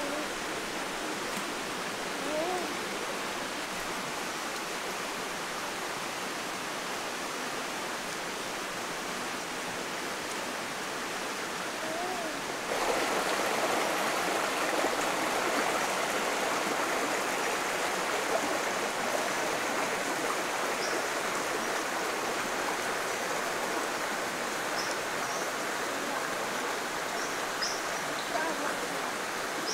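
Steady rushing of a jungle stream, stepping up louder about a third of the way in. Before that come a couple of short wavering calls, and near the end faint high chirps.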